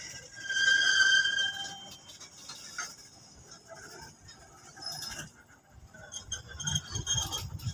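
Loaded freight wagons rolling past on the rails. A high, steady metallic squeal from the wheels fills the first two seconds. Then only faint rolling noise and light clinks are left, until a low, pulsing rumble builds near the end.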